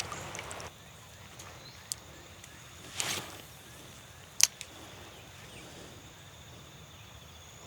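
Quiet outdoor creek ambience: a low, even hiss broken by a few small, sharp clicks and one soft swish about three seconds in.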